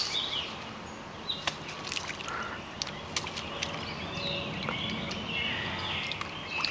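Outdoor ambience with birds chirping, and a few short clicks scattered through it.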